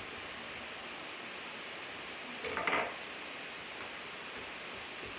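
A hand-held garlic press gives a sharp click and a short rasp about halfway through as garlic cloves are squeezed through it, over a steady hiss.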